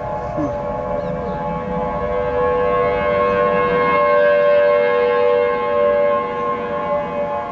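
Federal Signal Thunderbolt tornado siren sounding a steady chord of several tones. It swells louder from about halfway through and eases off again near the end.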